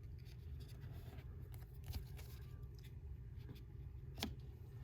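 Faint handling of trading cards: a few soft clicks and slides as cards are shuffled through by hand, over a low steady hum.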